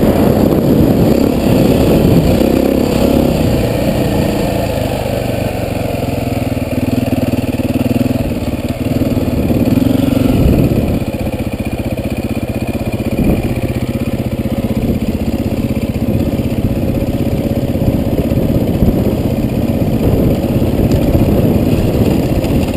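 Dirt bike engine running under load while being ridden, its pitch rising and falling over the first ten seconds or so, then settling a little quieter and steadier.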